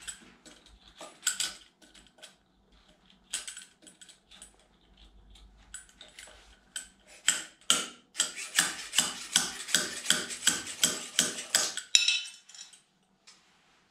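Homemade slide-hammer puller, a nut and large washer on a threaded rod, knocked repeatedly to pull the water pump ball bearing out of a Honda CR125 engine case. It makes sharp metallic clinks: a few scattered ones at first, then a fast run of about four or five a second for several seconds, stopping about twelve seconds in.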